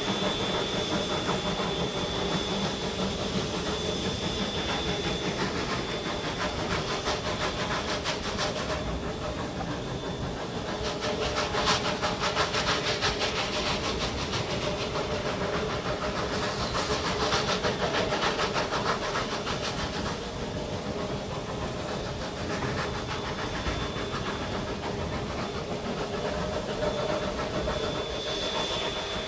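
A narrow-gauge Shay geared steam locomotive hauling open passenger cars up a grade, heard from aboard the train: steady running noise with steam hiss. It twice picks up a rapid rhythmic beat for a second or two, about a third of the way in and again past the middle. A thin high steady tone is heard near the start and again near the end.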